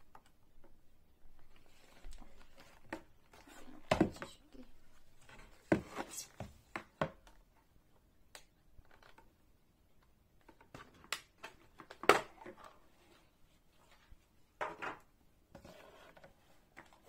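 Hard plastic packaging tray and an IPL hair-removal handset with its clip-on filter attachments being handled and unpacked: scattered clicks, knocks and rattles of plastic on plastic, loudest about four seconds in and again about twelve seconds in.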